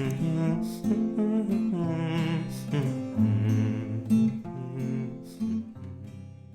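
Outro music led by guitar: sustained melodic notes over strummed chords, fading out toward the end.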